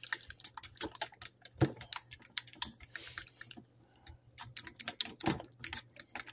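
Fork stirring thick tzatziki in a speckled enamelware bowl: quick, irregular clicks and scrapes of the fork against the enamel, with two heavier knocks, one about a second and a half in and one near five seconds.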